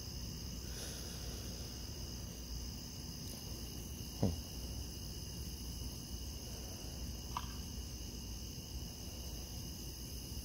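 Crickets chirping in a steady night chorus of several high-pitched trills over a low background rumble, with one short low thud about four seconds in.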